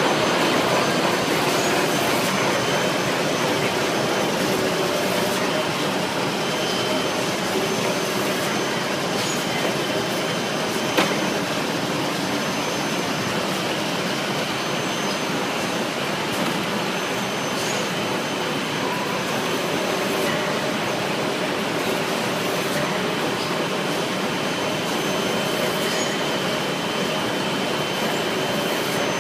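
Automatic band saw log cutter for toilet-paper rolls running, cutting paper logs into rolls: a steady mechanical hiss with faint steady whines. A single sharp click sounds about eleven seconds in.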